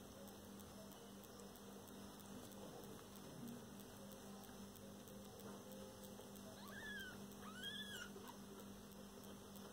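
Newborn kitten mewing faintly: two short, high squeaks that rise and fall, about seven and eight seconds in, over a steady low hum.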